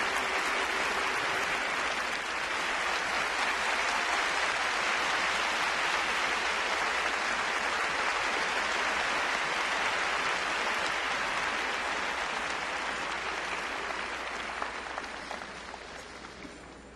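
Large crowd applauding steadily, fading away over the last few seconds.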